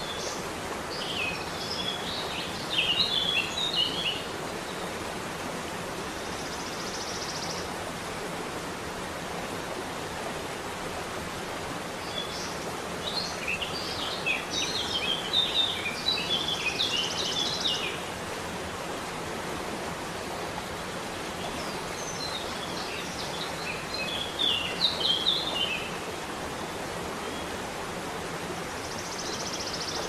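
Steady rush of falling water, with a songbird chirping in three spells of quick high notes.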